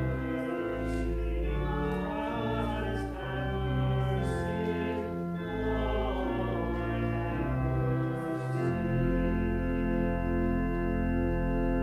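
Church organ playing slow, sustained chords that change every second or two, with a congregation singing along during a liturgical chant.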